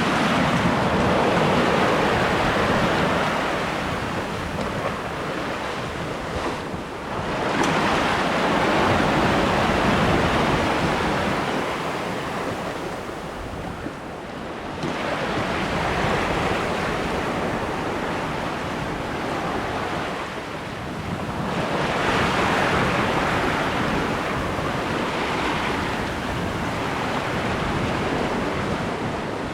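Lake waves and water rushing along a sailboat's hull, swelling and easing in four slow surges, with wind buffeting the microphone.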